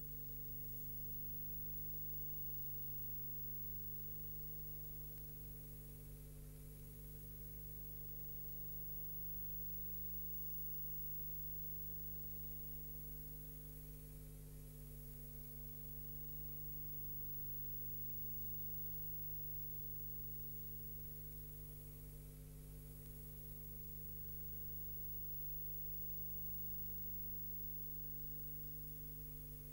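Steady electrical hum with a layer of high hiss, unchanging throughout, on an otherwise silent soundtrack.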